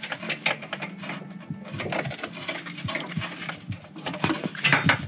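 Irregular sharp metallic clicks and clinks of hand tools and metal parts knocking against the exhaust downpipe fittings under the car, with a louder flurry near the end.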